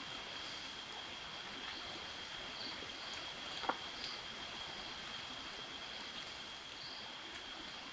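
Night insects trilling: one steady, unbroken high-pitched drone with small chirps above it over a soft hiss. A single sharp click sounds about three and a half seconds in.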